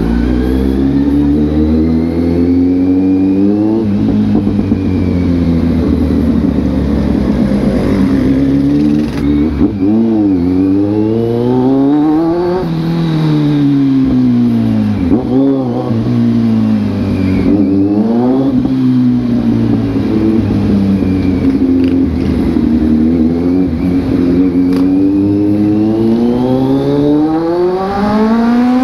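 Kawasaki Z900 SE inline-four running through an aftermarket dual-pipe exhaust with the airbox snorkel and catalytic converter removed, heard from the rider's seat. The revs climb and fall several times as the bike accelerates and changes gear, settle into a steadier cruise, then rise again near the end.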